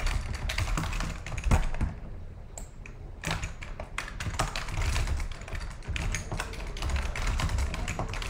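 Typing on a computer keyboard: a rapid, uneven run of key clicks, with a pause of about a second two seconds in.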